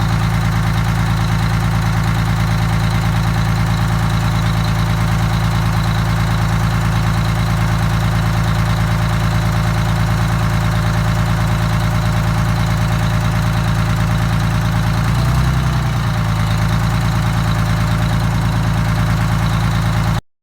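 Detroit Diesel 6V92 two-stroke V6 diesel idling steadily, with a brief wobble in its pitch about fifteen seconds in. It is running on a newly replaced fuel line and Racor fuel filter, fitted because the old line was sucking air and making the engine stumble.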